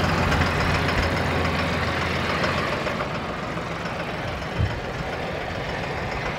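Mahindra 6075 tractor's diesel engine running steadily at idle, growing fainter over the first few seconds. A brief thump about four and a half seconds in.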